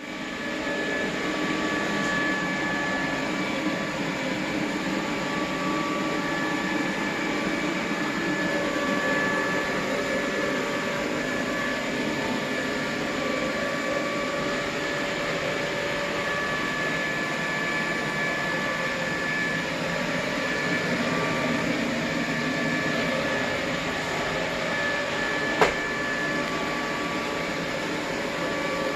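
iClebo O5 robot vacuum running, a steady whir of its suction motor and brushes with faint high whine tones. A single sharp click comes near the end.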